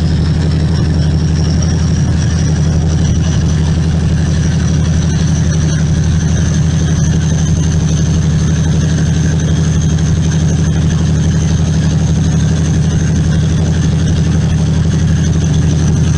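Diesel locomotive engine running loud and steady, a deep, even drone with a thin high whine held above it, while the locomotive throws smoke and fire from its exhaust.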